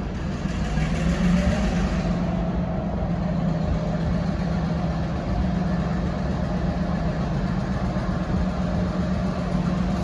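V/Line Y-class diesel shunting locomotive Y156 running steadily, a low engine hum, with a brief swell of hiss about a second in.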